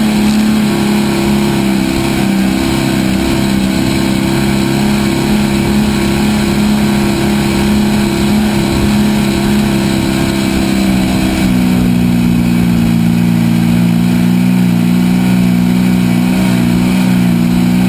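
Off-road vehicle engine running steadily while riding along a sandy trail, with a small step in pitch about eleven seconds in.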